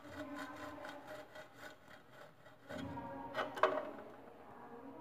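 A slice of bread rubbed back and forth over the finest holes of a stainless steel box grater, grating it into breadcrumbs in a run of repeated strokes, the strongest about three and a half seconds in.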